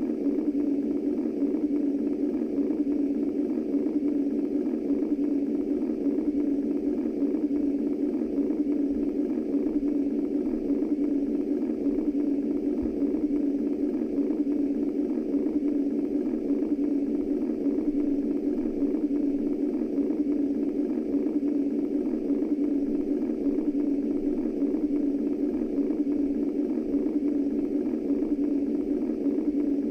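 Womb-style white noise for soothing a baby to sleep: a steady, muffled low hum of noise with no beat or breaks.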